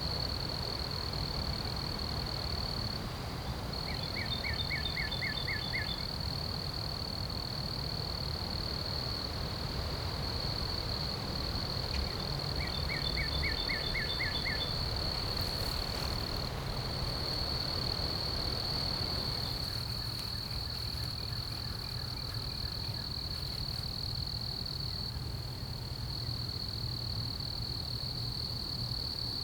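A steady, unbroken high-pitched insect trill from field insects such as crickets, with low wind rumble beneath. A small bird sings a quick run of about eight descending notes about four seconds in, repeats it about twelve seconds in, and gives a fainter run later.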